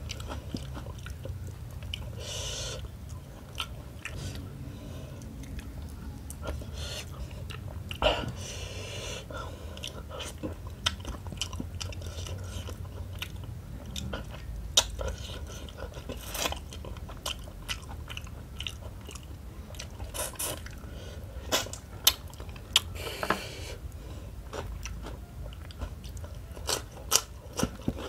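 A person chewing and biting mouthfuls of rice and smoked tuna curry eaten by hand, with scattered sharp clicks throughout.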